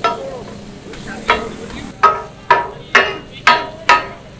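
Steel spatula striking and chopping chicken on a hot iron tawa griddle, with ringing metallic clanks. They come once at the start and once about a second in, then settle into about two a second from halfway on, over faint sizzling.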